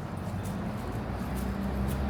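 Street ambience: a vehicle engine's low, steady hum, with light footsteps clicking on paving.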